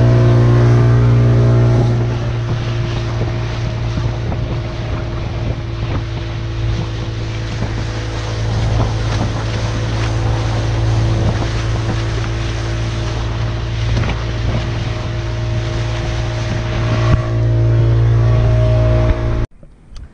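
Motorboat engine running at a steady pace with a low, even hum, over a rushing noise of water and wind. It cuts off suddenly near the end.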